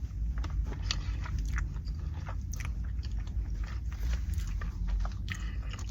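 A person chewing a mouthful of sandwich, with irregular wet mouth clicks.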